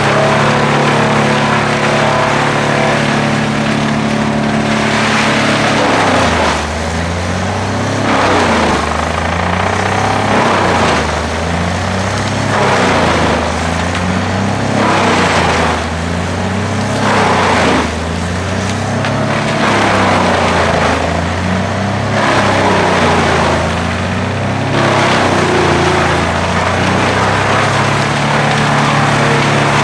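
Fendt 936 tractor driving a wood chipper as it shreds tree trunks and branches. After a steady start, the engine pitch sags and recovers again and again, about every one and a half seconds, under a harsh rush of chipping noise as each load of wood bites. It settles back to a steady run near the end.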